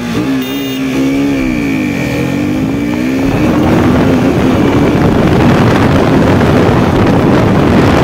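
KTM RC 125's single-cylinder engine accelerating hard. Its pitch dips and climbs through gear changes in the first three seconds, then holds high revs as wind rushing over the microphone builds with speed.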